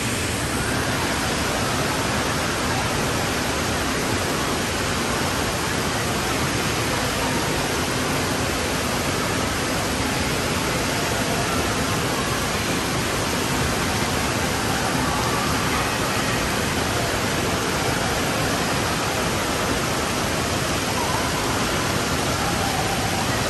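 Steady rush of spraying and splashing water from an indoor water park's fountains and play structure.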